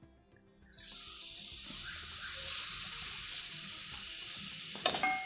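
Thick curd poured into hot oil and spices in a frying pan, hissing and sizzling steadily from about a second in. A short clink near the end.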